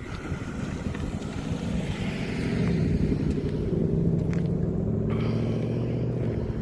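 A motor vehicle's engine running close by, a low rumble that grows louder over the first few seconds and then holds steady.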